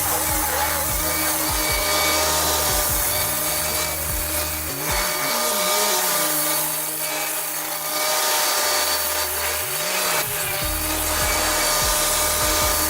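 Background music with a deep bass, laid over the steady noise of a forestry machine working wood.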